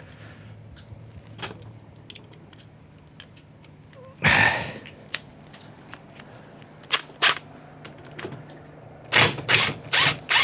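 Scattered clicks and clanks of hand tools being handled, with a short noisy burst about four seconds in and a quick run of short, sharp bursts near the end.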